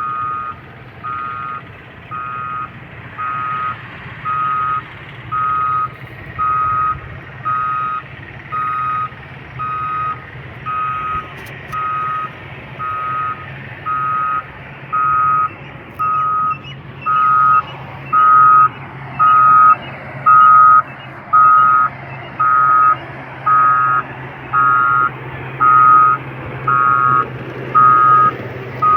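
Reversing alarm of a construction vehicle beeping steadily, about one beep a second, over its running diesel engine; the beeps grow louder about halfway through as the vehicle backs closer.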